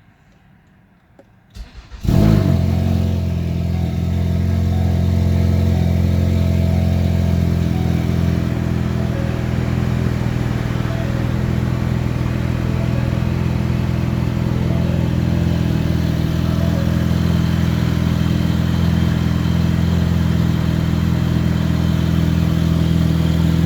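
Ford Focus petrol engine cold-starting: a brief crank, then it catches about two seconds in with a loud flare and settles into a steady fast idle.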